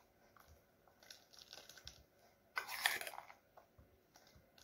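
Chopped walnuts being spooned into hollowed-out peeled apples: faint scraping, crunching and rustling of the spoon, nuts and baking paper, with a louder rustle about two and a half seconds in.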